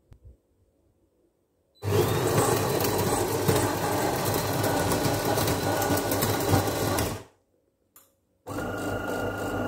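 De'Longhi Magnifica Evo bean-to-cup machine grinding coffee beans in its built-in burr grinder for about five seconds. After a short pause and a click, its pump starts with a steady buzzing hum and a high whine as brewing begins.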